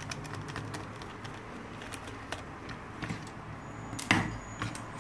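Screwdriver working a screw out of a laser printer fuser unit's frame: a run of small light clicks, with one louder knock about four seconds in.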